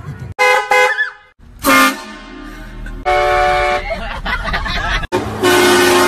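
Truck-mounted train horns blasting: a few short blasts, a brief multi-tone chord about three seconds in, then a long, loud sustained chord from about five and a half seconds in.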